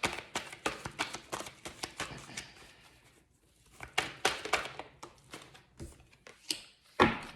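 Tarot cards being shuffled by hand: a rapid run of flicking, slapping card sounds, a short pause, a second burst of shuffling, then a single louder slap near the end as a card is put down.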